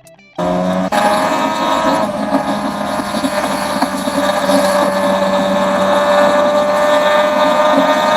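Yamaha RD500LC's liquid-cooled 499 cc V4 two-stroke engine running at a fairly steady pitch. It cuts in abruptly about half a second in.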